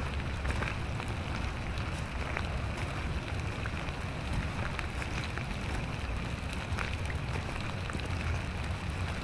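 Steady rain falling on the lake and the shore, with scattered small drop ticks over a constant low rumble.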